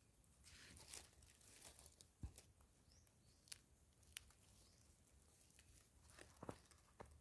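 Faint scratching and rustling of dry, crumbly soil as gloved fingers scrape it away while digging out chafer beetles: a soft scratchy rustle in the first couple of seconds, then a few scattered sharp ticks.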